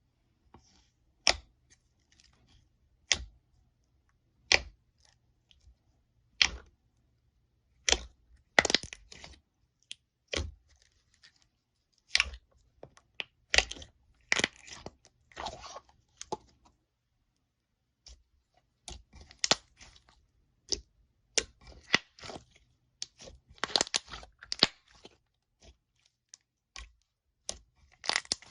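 Slime being worked by hand, giving sharp pops and crackles: single pops about every one and a half to two seconds at first, then quicker clusters of crackling from about eight seconds in, with a brief pause past the middle.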